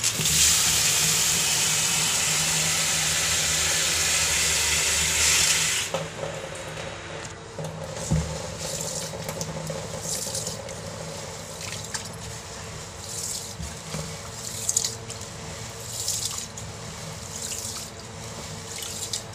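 Tap water running into a plastic basin of dried pulses in a steel sink for about six seconds, then stopping. After that, water swishes and splashes irregularly as a hand stirs and rubs the grains to wash them.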